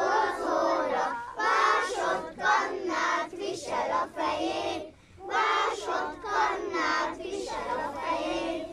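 A group of young children singing a song together in unison, with many voices.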